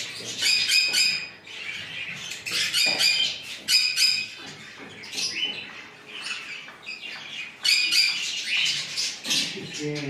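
Small caged parrots squawking and chirping, in bursts of rapid, shrill calls several times a second, loudest near the start, from about 2.5 to 4 seconds in and again near 8 seconds.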